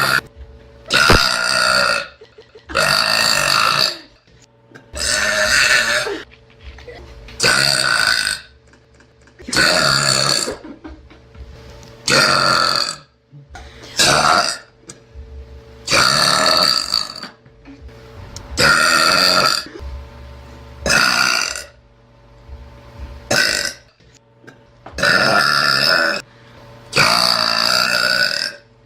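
A person belching over and over: about a dozen loud, drawn-out burps, each around a second long and coming every two seconds or so, with a couple of short ones mixed in.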